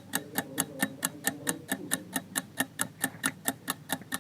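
Countdown-timer sound effect: rapid, even clock-like ticking, about six or seven ticks a second, with a faint soft tone beneath.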